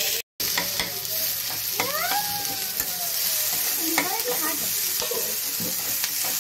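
Sliced onions sizzling as they fry in a kadhai, stirred with a metal spoon that scrapes and clicks against the pan. A single rising then slowly falling tone sounds in the background about two seconds in, and the sound drops out for a moment just after the start.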